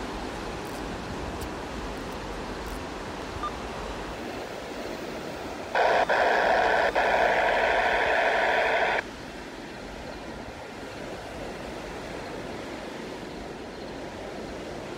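Steady rolling noise of a BNSF freight train. About six seconds in, a locomotive horn sounds one chord for about three seconds, with two very brief breaks.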